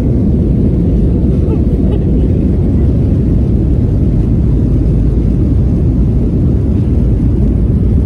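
Airliner cabin noise in flight: a loud, steady low roar of the engines and airflow, unchanging throughout.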